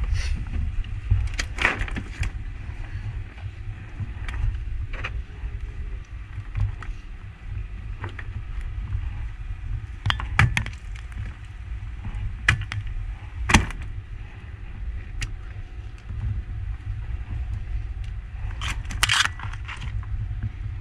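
Scattered knocks, clatters and scrapes on a fishing boat's deck over a steady low rumble, with the sharpest knocks about ten and thirteen seconds in and a brighter clatter near the end.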